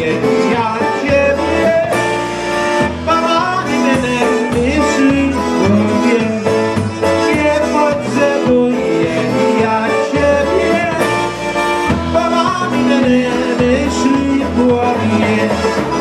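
Live polka band playing, with a man singing into a microphone over the band and a pulsing bass line.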